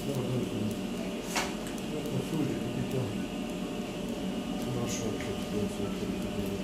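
Steady hum of operating-room equipment during an ankle arthroscopy, with a couple of light clicks.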